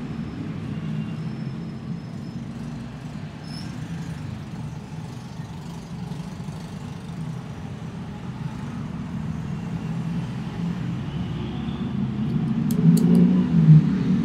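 Steady low rumble of a motor vehicle, growing louder near the end, with a few sharp clicks near the end.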